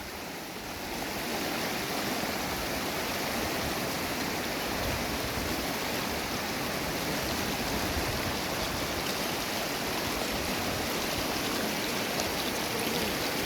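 Small river's water rushing steadily, growing louder about a second in.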